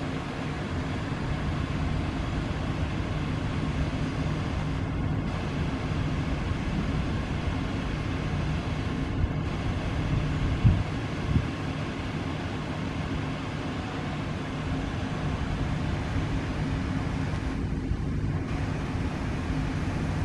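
Enshu Railway 2001F electric train rolling slowly past, a steady running hum, with two short knocks about ten and eleven seconds in.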